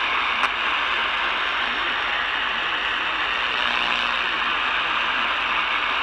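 Steady hiss and crackle of AM-band static from the speaker of an Eton Elite Traveler portable radio tuned to 1680 kHz, a weak station under the noise. One sharp click about half a second in.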